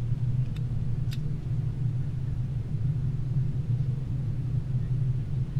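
Cabin noise of an Airbus A320-200 taxiing after landing: a steady low rumble, with two faint clicks about half a second and a second in.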